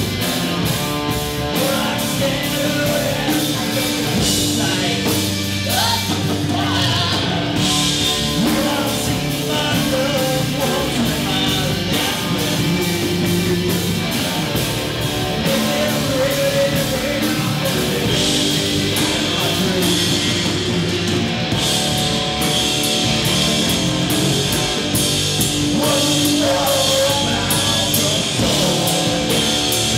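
Live rock band playing: singing over bass guitar and drums, with a steady drum beat.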